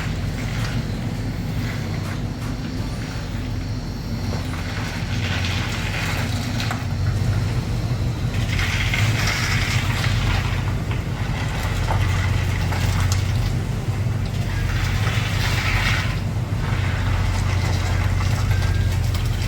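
First-generation Toyota Tundra on the move: a steady low engine and road drone, with three passing swells of wind hiss.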